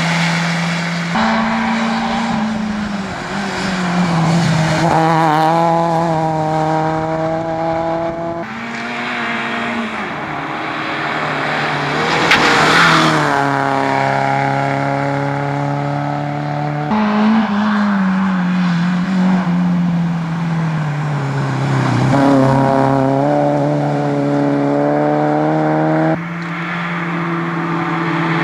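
Small front-engined rally cars driven flat out past the camera one after another, each engine climbing in pitch under full throttle and dropping at every upshift or lift. The sound changes abruptly about every eight or nine seconds as one car gives way to the next.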